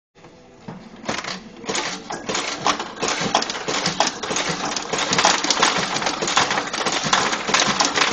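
Dense, rapid metallic clicking and clatter from pachinko and pachislot machines, getting louder after about a second.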